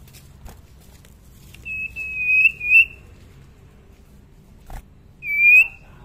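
Young common iora whistling: a long, slightly rising whistle broken in two near the middle, and a shorter rising whistle near the end.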